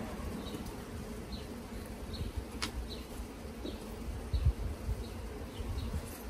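Honey bees buzzing steadily around an opened hive, with dull low thumps, the loudest about four and a half seconds in, and one sharp click about two and a half seconds in.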